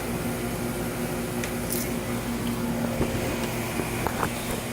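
Steady electrical hum over room noise, with a few faint clicks.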